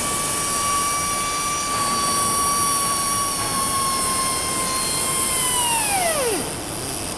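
Pneumatic steel-strapping tool tensioning a strap around a steel coil. Its air motor runs with a steady high whine over a hiss of exhaust air, then slows with a falling whine and stops about six seconds in.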